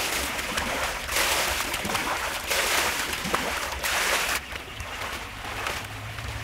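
Stream of water pouring and splashing into an aluminium basin of plucked quail carcasses, coming in surges; it stops about four seconds in.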